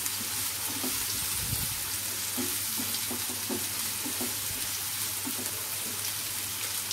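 Chopped onions sizzling steadily in hot oil in a nonstick kadai, stirred with a silicone spatula that scrapes and pushes them around the pan in short strokes. The onions are in the early frying stage, before the tomato goes in.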